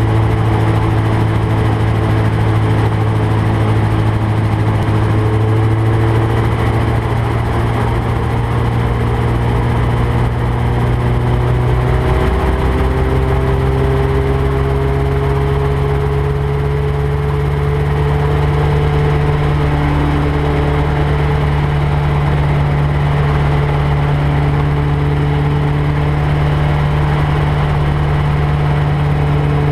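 RotorWay Exec 162F helicopter's liquid-cooled flat-four engine and rotor running steadily on the ground before takeoff. About twelve seconds in the pitch steps up and then keeps rising slowly as the rpm is raised.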